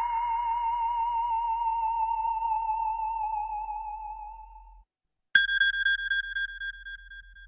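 Two iPhone alert tones back to back. The first is a synthesized tone that wavers in pitch and fades out after about four and a half seconds. After a short gap, a bell-like tone rings once, about five seconds in, and wavers as it fades.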